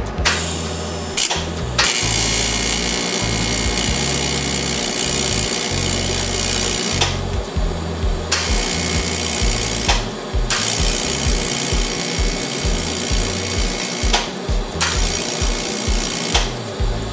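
An AC TIG welding arc buzzing and hissing as filler is laid on an aluminum boat propeller. It runs in long stretches, cutting off briefly three or four times as the arc is stopped and restarted. Background music with a bass line plays underneath.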